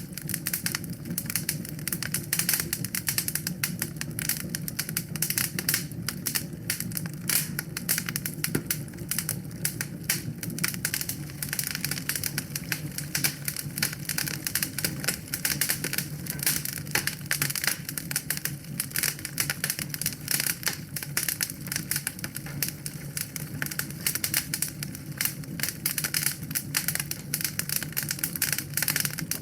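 Wood fire burning in a fireplace: a dense, irregular crackling of many small snaps over a steady low rumble of the flames.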